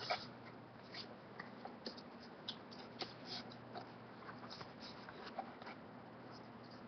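Paper greeting card being handled and held up: scattered light crinkles and finger taps on the card, over a faint steady low hum.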